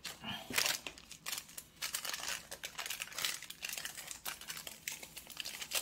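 Foil instant-ramen soup sachet crinkling in the hands as it is handled and emptied into a bowl, a run of short, irregular rustles.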